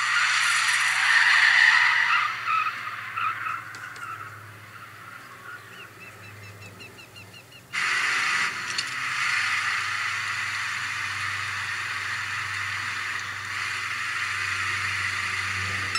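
A movie car scene, with engine and tyre-skid sounds, played at maximum volume through the small built-in speaker of an older-generation iPod touch. It sounds thin and tinny, with almost no bass, and it fades in the middle before getting loud again about eight seconds in.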